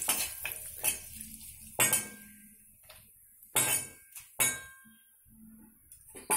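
Metal spatula scraping and clinking against a metal kadai while curry leaves are stirred in hot oil: a handful of sharp knocks spaced a second or two apart.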